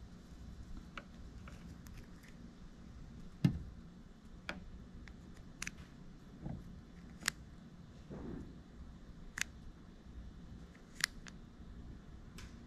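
Small sharp clicks and taps as multimeter probe tips touch and slide on the metal spade terminals of an old motorcycle ignition switch handled in the fingers, about a dozen scattered irregularly, the loudest a little over three seconds in.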